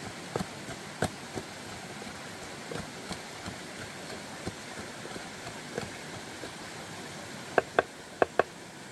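Wooden pestle pounding in a wooden mortar: irregular dull knocks over the steady rush of a stream. Near the end come four sharper, louder knocks in two quick pairs.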